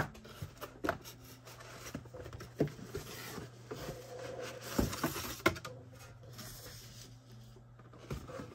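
Cardboard lens packaging being handled: the inner box scraping and sliding out of its outer carton, with rustling and a few light knocks and taps. A faint steady low hum runs underneath.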